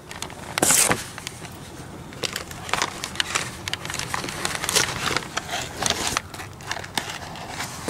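Handling noise: scattered clicks and rustles of cardboard packaging and the camera being handled, with a louder rustle just under a second in.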